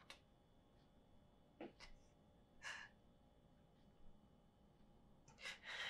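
A crying woman's quiet, shaky breathing: two short breaths a second apart, then a longer breath near the end.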